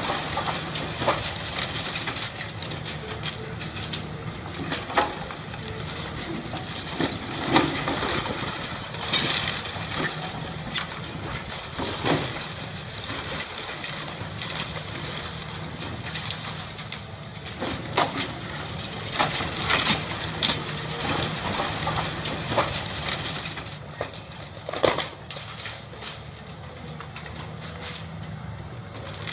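Caterpillar tracked excavator's diesel engine running steadily while its bucket tears into a brick barn's wall and clay-tile roof, with sharp cracks and crashes of breaking masonry and tiles at irregular intervals.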